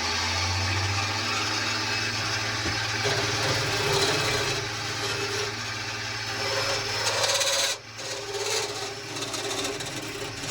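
Wood lathe running while a turning tool cuts into the spinning wooden baseball-bat blank: a steady low motor hum under a rough, rasping cut. The cut drops away briefly about three-quarters of the way through.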